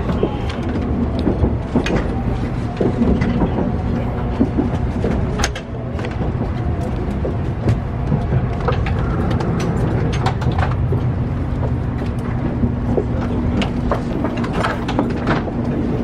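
Running noise heard inside a 700 series Shinkansen passenger car as it rolls in toward its terminus: a steady low rumble with many scattered clicks and knocks from the car and track. A low steady hum comes in about three-quarters of the way through.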